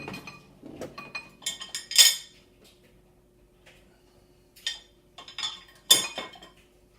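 Dishes and cutlery clinking and clattering in several bursts, the loudest about two seconds in and again near six seconds, over a faint steady hum.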